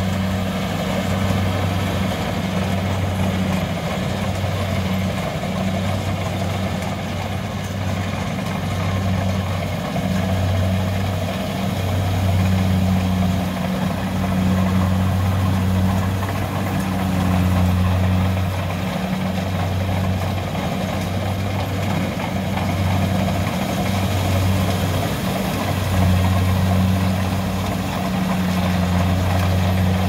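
Kubota DC-70 combine harvester's diesel engine running under load while it cuts and threshes rice, a steady low hum with machinery noise that swells and eases every second or two.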